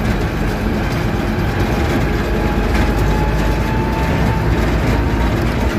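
Military truck running while being driven, heard from inside the cab: a loud, steady low rumble of engine and drivetrain.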